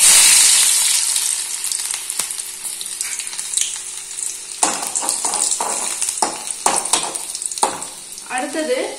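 Garlic sizzling in hot oil in a kadai, loudest at first as it goes in and slowly dying down. From about halfway, a metal spatula stirs and scrapes it against the pan in a series of short strokes.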